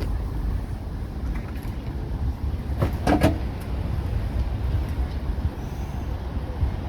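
Steady low rumble of road traffic and wind on the microphone, with a short, louder sound about three seconds in.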